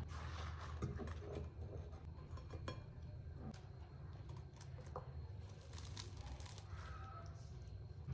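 Faint rustling and crinkling of handled material with scattered light clicks and taps, over a steady low hum.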